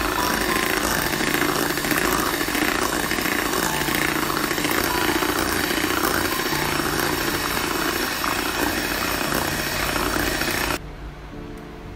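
Electric hand mixer running steadily, its twin beaters whisking a thick curd and milk-powder batter in a bowl. The motor cuts off suddenly about a second before the end.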